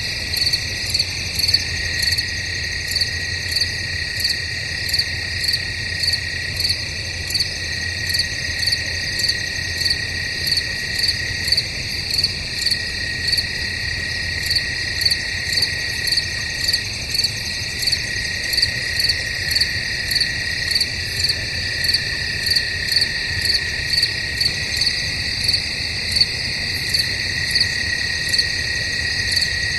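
Crickets chirping at night: a dense chorus with a steady high trill under regularly repeating, higher chirps.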